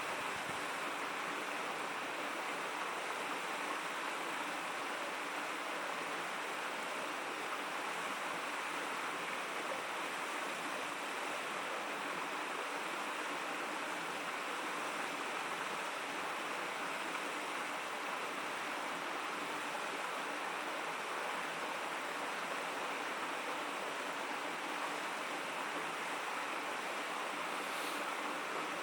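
A river babbling steadily: an even, unbroken rush of running water.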